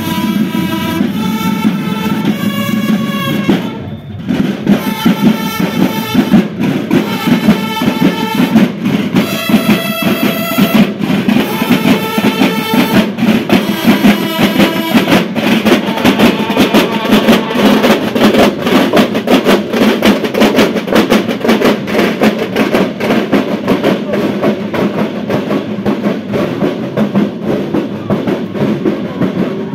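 Marching band of drums and brass horns playing a march: horn phrases over the drumming for about the first fifteen seconds, with a short break about four seconds in, then steady drumming alone.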